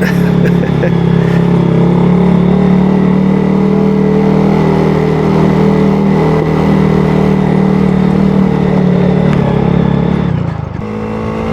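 2022 Honda Grom's single-cylinder 125 cc engine running at a steady pace while being ridden; about ten seconds in the engine note drops away as the throttle eases off.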